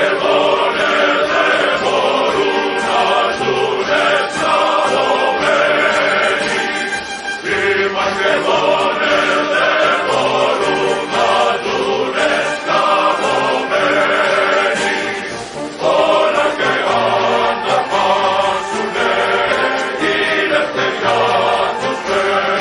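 Background music of a choir singing in long, held phrases.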